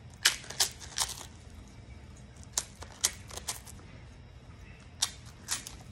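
Thin oblea wafer being bitten and chewed: crisp cracks and crunches in three short clusters.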